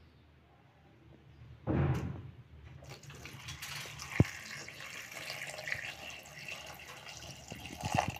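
A stream of water poured into a bowl of sliced onions, an even splashing that starts about three seconds in and runs on. A short thump comes just before it, and a sharp click about four seconds in.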